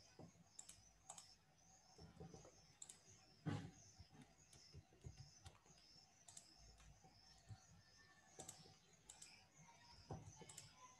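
Faint, scattered clicks of a computer mouse and keyboard, with one louder click about three and a half seconds in, against near silence.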